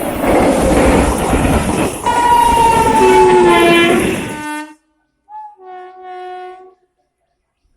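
Indian Railways train running past with loud rumbling. About two seconds in, the locomotive's horn blows for about two and a half seconds, its pitch sinking slightly, before the sound cuts off abruptly. A shorter, fainter horn blast follows without the rumble.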